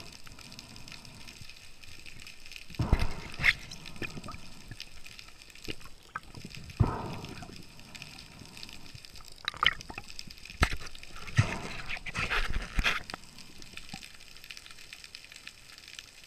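Water splashing and gurgling in irregular bursts, with scattered sharp clicks.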